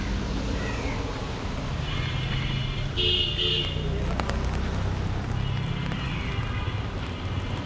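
City street traffic: vehicle engines running steadily under a wash of noise, with a vehicle horn honking loudly about three seconds in.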